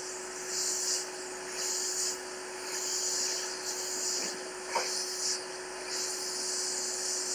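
Hot air rework station blowing on a MacBook Pro logic board to desolder the EFI firmware chip. A hiss swells and fades every second or so over a steady hum.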